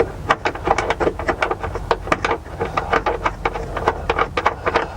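A rapid, irregular run of clicks and light knocks from hand tools undoing the bolts that hold a car's dashboard in.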